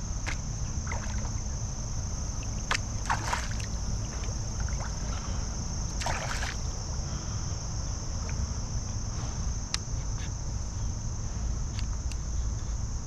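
Creek water sloshing while a hooked smallmouth bass is played on the line, with several short splashes from the fish at the surface; the longest comes about six seconds in. Under them are a steady low rumble and a steady high-pitched hiss.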